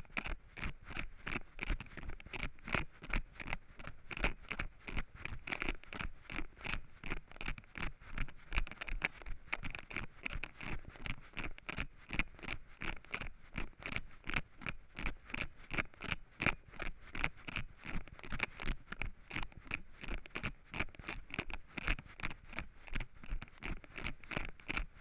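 Running footsteps on a forest trail covered with fallen leaves, a steady beat of about three strides a second.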